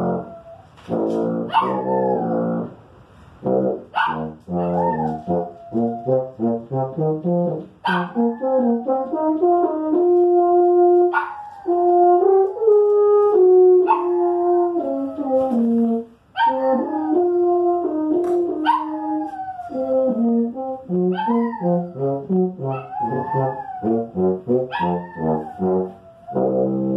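Tuba playing a slow melody of held and stepping notes while a small dog howls along, its howls rising and falling in pitch over the music.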